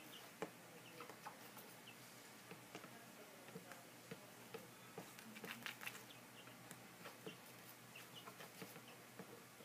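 Two-week-old chicks peeping faintly, short high chirps scattered throughout and bunched together past the middle, with small clicks and rustles of pecking and scratching in wood shavings; one sharper tap about half a second in.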